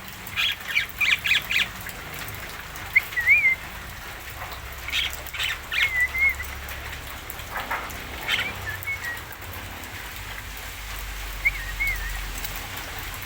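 Javan myna (jalak kebo) calling: short bursts of harsh, clicking chatter alternating with brief warbled whistles, repeated several times.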